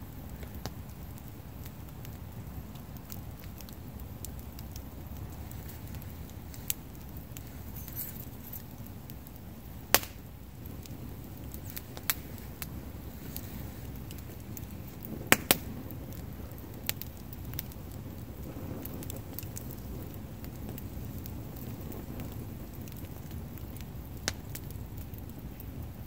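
Wood campfire of stacked logs burning, with a steady low rumble of flame and scattered sharp crackles and pops from the wood. The loudest pops are a single one about ten seconds in and a quick double pop about fifteen seconds in.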